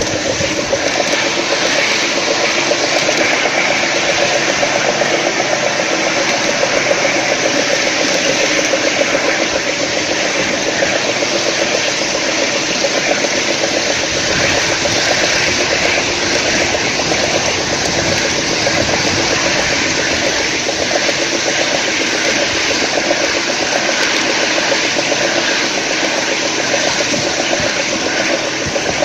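5-inch gauge miniature Class 37 diesel locomotive running along its track: a steady hum from its drive over the hiss and rumble of wheels on the rails.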